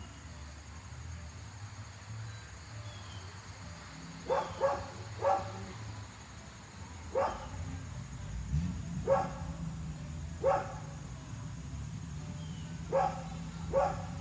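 A dog barking in short single barks: a quick run of three about four seconds in, then several more spaced a second or two apart, over a steady low hum.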